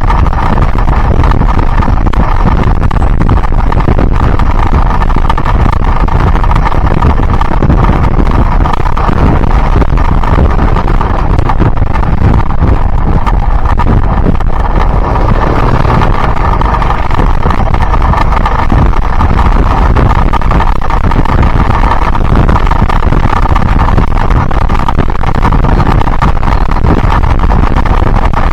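Yamaha Byson single-cylinder motorcycle engine running steadily while riding, mixed with heavy wind rush on the microphone.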